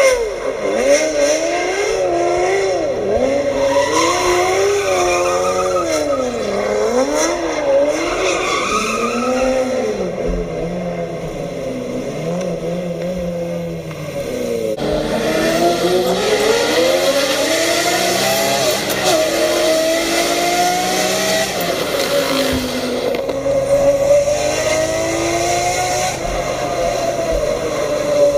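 Lamborghini Murciélago's V12 revving up and down hard while spinning donuts, with tyres squealing. About halfway through the sound cuts to a car engine pulling up through the revs, heard from inside the cabin.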